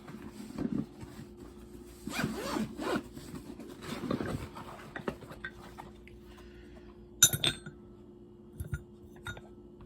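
Handling noise of hard tools being moved about by hand: rubbing and scraping for the first few seconds, then a couple of sharp clacks about seven seconds in, and a few light ticks near the end.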